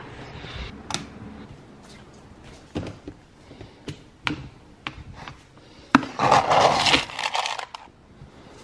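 Clicks and knocks from a plastic lidded storage bin being opened and handled, then a loud rattling rush lasting under two seconds about six seconds in, as dry dog food is scooped from it.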